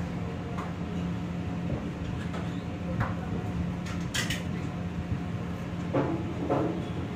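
Kitchen work: scattered knocks and clinks of dishes, utensils and cupboards being handled, over a steady low hum of kitchen equipment. The sharpest clatter comes about four seconds in.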